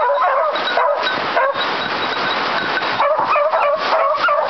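A pack of hunting hounds baying at a wild boar they are holding at bay, many wavering cries overlapping without a break. For a second or two in the middle a rushing noise largely covers the cries, which come back clearly near the end.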